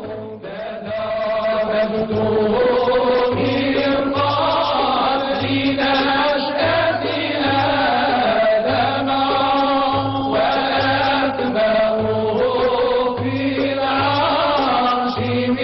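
Mawlid chanting: Arabic devotional verse sung in a drawn-out melodic line, over a low pulse repeating about once a second.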